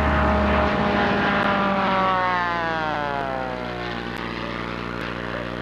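Formula One racing plane Nemesis, with its four-cylinder Continental O-200 engine, passing at high speed. The drone of the engine and propeller drops in pitch about two to three seconds in as it goes by, then fades.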